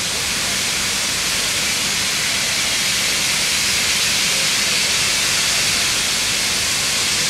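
Steam locomotive letting off steam: a steady, loud hiss.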